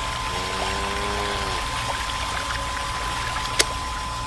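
Miniature electric water pump running, its stream of water pouring steadily from the outlet pipe into a plastic tub of water. A short pitched call sounds about half a second in, and a sharp click comes near the end.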